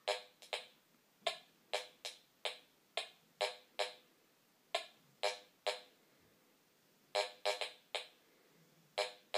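Metal detector sounding short pitched beeps, often in quick pairs, as its coil sweeps back and forth over iron nails with a US quarter placed below them. These are its target responses during an air test.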